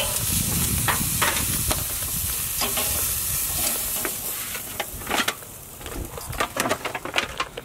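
Flap steak sizzling over hot coals on a Weber charcoal grill, with sharp clicks of metal tongs against the grate as the meat is lifted off. The sizzle thins out about halfway through, leaving scattered clicks and rattles of the tongs and a foil pan.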